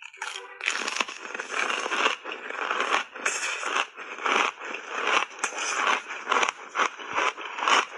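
Ice chips coated in matcha powder being chewed, close-miked: a dense, continuous run of sharp, crackling crunches as the mouthful is broken up.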